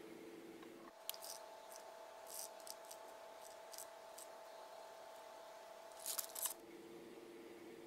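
Small paper topping packet crinkling and tapping as tiny sugar beads are shaken out onto the candy: scattered faint clicks and rustles, with a louder rustle about six seconds in, over a faint steady hum.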